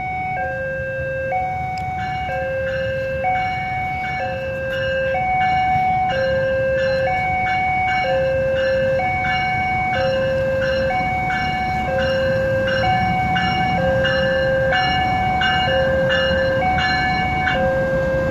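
Railway level-crossing warning alarm sounding its two-tone electronic signal: a lower and a higher tone alternate, each held just under a second, repeating steadily over a low rumble of the passing train.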